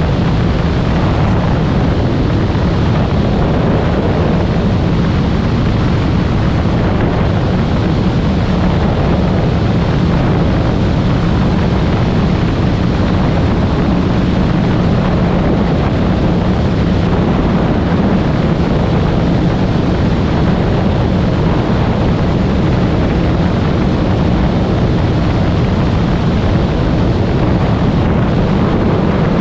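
Steady rush of airflow buffeting an outside-mounted camera's microphone, over the low drone of a Cessna 185's engine and propeller in cruise flight.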